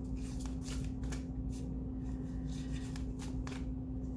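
A spirit-animal oracle card deck being shuffled by hand: a run of soft, irregular card flaps several times a second, over a steady low hum.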